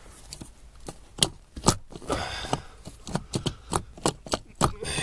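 Hands rustling and pushing through fiberglass attic insulation, with a run of irregular sharp clicks and taps from handling things close to the microphone.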